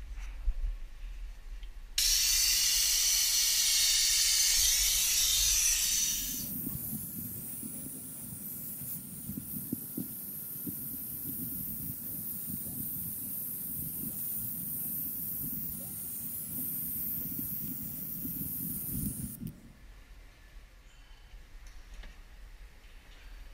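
Fluid extractor hissing steadily as it sucks the old oil out of a BMW X5's ATC45L transfer case. The hiss starts abruptly, turns higher-pitched with a lower rumble underneath after a few seconds, and cuts off suddenly near the end.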